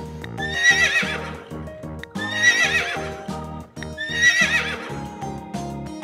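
A horse whinnying three times, each call about a second long with a shaky, wavering pitch, over background music.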